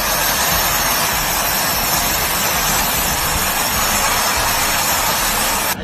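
Loud, steady rushing hiss that starts abruptly and cuts off suddenly.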